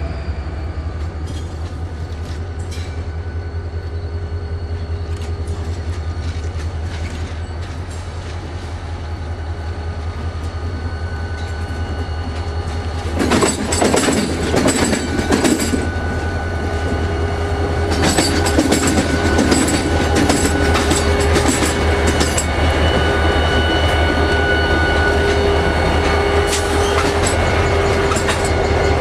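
EMD 645 diesel prime mover in a locomotive running steadily with a deep rhythmic throb, growing louder in the second half. Rapid clatter of wheels over rail joints comes in two bursts around the middle.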